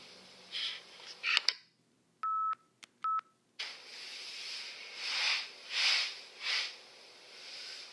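Hiss of a microcassette tape recording, cut by a click about a second and a half in. Then about two seconds of dead silence holding two short steady beeps. The hiss returns with three swells of noise.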